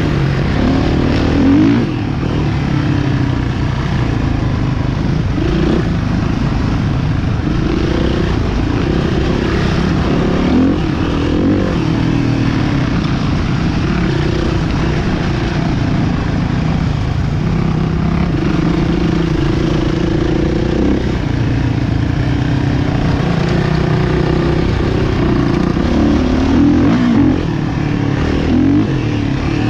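Motocross motorcycles running and revving, engine pitch rising and falling again and again, with more than one engine heard at once.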